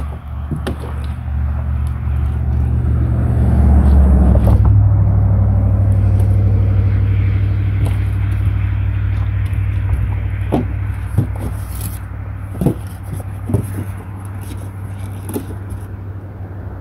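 An engine drones low and steady, growing louder over the first few seconds and then slowly fading as it passes. A few short clicks and knocks come in the second half.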